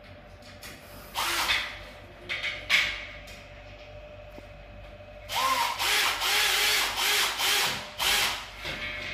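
Cordless drill-driver set to full mode, driving screws through a split AC indoor unit's metal mounting plate into wall plugs. Two short bursts come first, then a longer run of several bursts from about halfway.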